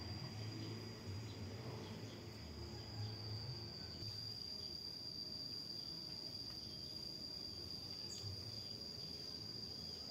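Background insect song, cricket-like: one steady high-pitched note that does not change, over a faint low rumble that comes and goes.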